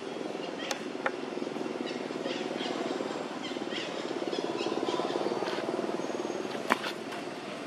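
Outdoor ambience: a steady low hum with short, high chirping calls in the middle and a few sharp clicks, the loudest near the end.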